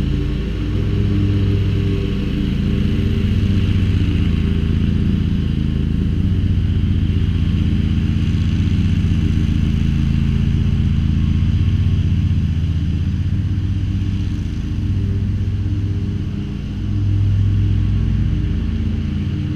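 Dixie Chopper Silver Eagle zero-turn mower's engine running steadily while mowing, with a brief dip in level about sixteen seconds in.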